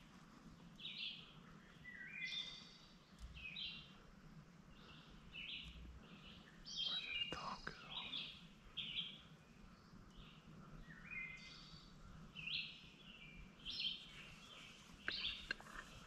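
Songbirds singing, many short chirping phrases overlapping one another, over a faint steady low hum.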